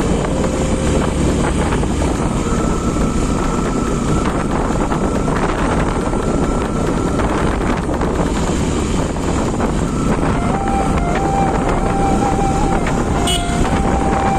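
Motorcycle riding at speed on an open road: a steady rush of wind on the microphone over the engine and tyre noise.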